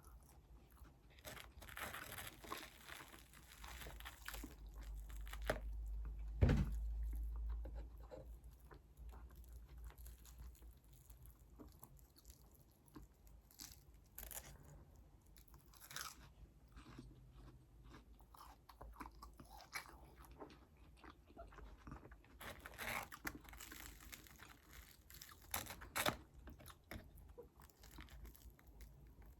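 Close-miked eating: crunchy bites and chewing of brunch food (omelette, toast, lemon cakes), in clusters of crisp crackling with quieter chewing between. There is one low thump about six and a half seconds in.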